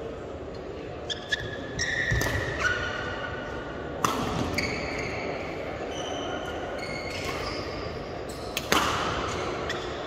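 Badminton rally in a large, echoing sports hall: sharp cracks of rackets striking the shuttlecock, with short high squeaks of shoes on the court floor between hits. The hardest hit comes near the end.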